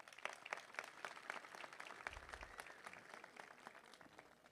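Crowd applauding, many hands clapping at once, faint, thinning out near the end.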